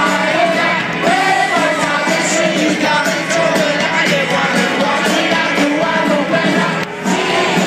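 A live rock band with a male singer playing through an open-air stage PA, heard from within the crowd. The sound is loud and thin, with almost no low bass.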